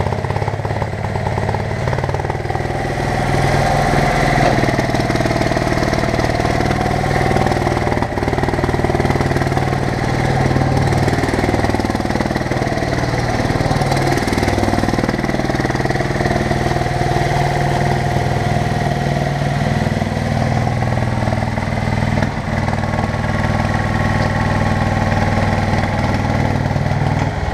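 Bobcat M371 skid-steer loader's engine running hard, its pitch rising and falling several times as the machine is driven and spun around.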